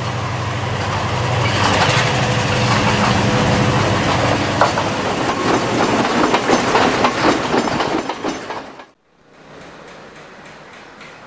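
Diesel locomotive passing close by: a steady low engine rumble with a rapid clatter of wheels over the rail joints building up over the middle of the passage. It cuts off abruptly about nine seconds in, leaving a much quieter outdoor background.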